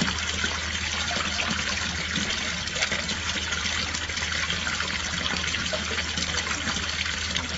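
Water running and splashing steadily over a hard surface, with a low steady hum underneath.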